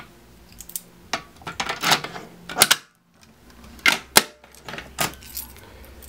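A key on a key ring jangling and clicking in the reset lock of a Fire-Lite BG-12L pull station as it is turned to reset the station, with several short rattles and clicks and a brief silent gap about halfway.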